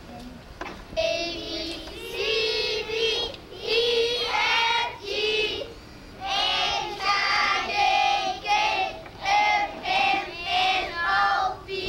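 A group of children singing a song together, in short phrases with brief pauses between them.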